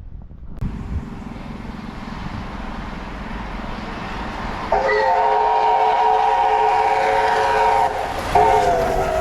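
A steam locomotive coming closer, its running noise growing, then sounding a chime whistle of several notes at once: one long blast of about three seconds, a short break, and a second, shorter blast that sags slightly in pitch.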